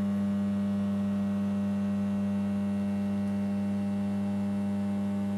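Steady electrical hum of a 33 kV substation, an even drone with a strong low tone and many faint higher overtones. The uploader found it normal, with no sign of equipment in distress.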